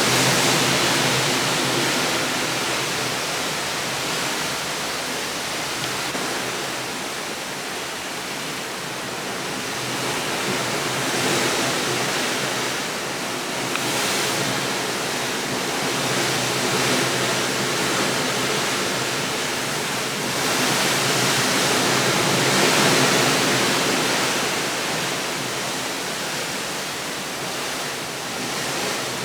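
Steady rushing noise that swells and eases slowly every several seconds.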